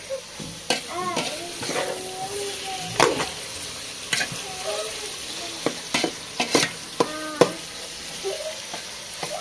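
Meat and onions frying in oil in a steel pot, sizzling steadily while a ladle stirs them, with several sharp knocks of the ladle against the pot at irregular intervals.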